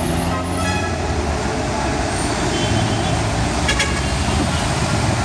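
Busy city road traffic: the steady low running of buses, jeepneys and cars, with a brief vehicle horn toot a little past halfway.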